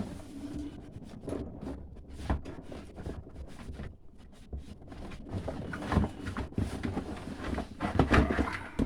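Rummaging through a cardboard box of pressure-washer parts: rustling packaging with many small knocks and clicks of plastic parts being handled, with a louder clatter near the end.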